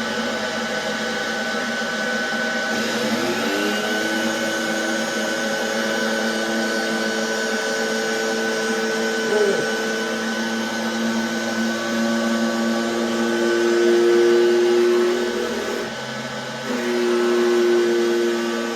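Sparx portable electric skate sharpener running, its grinding wheel working along a skate blade with a steady motor whine and grinding hiss. The pitch shifts a few times, and there is a brief drop about sixteen seconds in before it picks back up.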